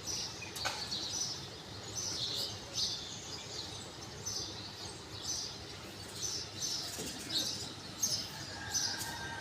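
Small songbirds chirping outdoors, many short high chirps one after another, with a single sharp click a little over half a second in.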